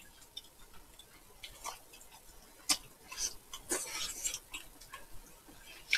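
Close-up eating sounds: chewing with crackly bites, and a few sharp clicks of chopsticks against dishes.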